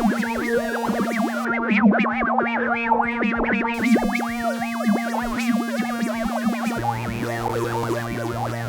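Experimental sound from a software wavetable synthesizer patch: a steady drone under a flurry of short warbling, chirping tones that jump about in pitch, modulated by random LFOs through a formant filter. About a second and a half in, the highs drop away for about two seconds, and near the end a lower drone comes in.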